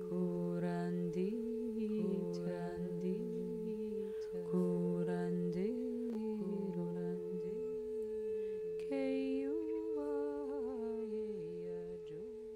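Wordless humming in a slow, wavering melody of short phrases over a steady held drone tone, fading a little near the end.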